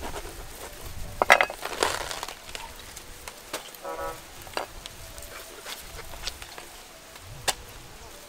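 Fresh cabbage being cut with a knife on a wooden chopping block: crisp crunching and cracking of the leaves, with a few sharp knocks, the loudest about a second in.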